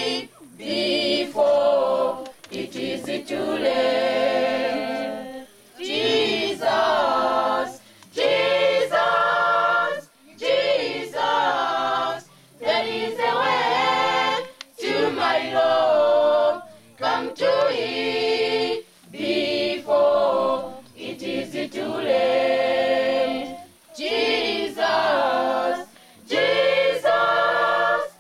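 A choir singing a cappella in phrases a second or two long, separated by short breaks.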